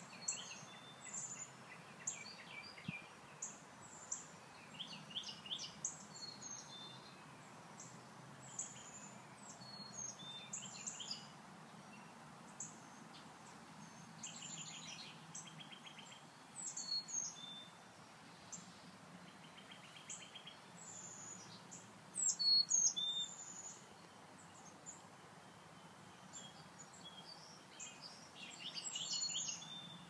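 Songbirds singing and calling: short high whistles and chirps scattered throughout, with rapid trills now and then and the loudest calls about two-thirds of the way through.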